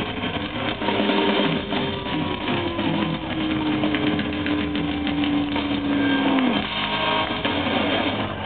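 Heavy metal band playing live, with electric guitar and drums. A long held note slides down about six and a half seconds in, as the song draws to its close.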